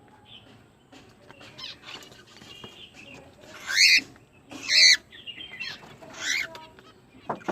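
Cockatiel calling: soft chirps, then three loud, harsh calls a second or so apart, about halfway through.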